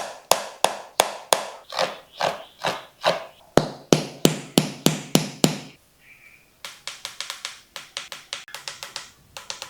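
A series of sharp, wooden-sounding taps in an even rhythm, about three a second. They stop briefly about six seconds in, then a quicker, lighter run of taps follows.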